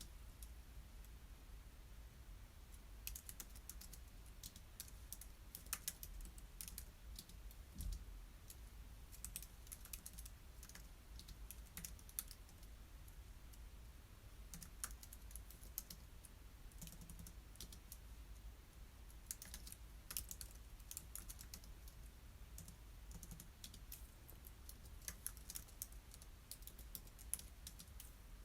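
Faint typing on a computer keyboard: runs of quick keystrokes with short pauses between them.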